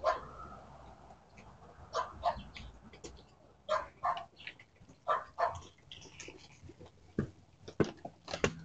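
A dog barking in short pairs of barks, with footsteps on the porch steps near the end.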